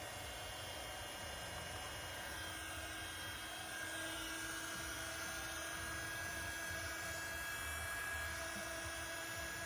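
Heat gun blowing hot air: a steady fan rush with a thin whine, warming the phone's screen to soften the adhesive that holds it.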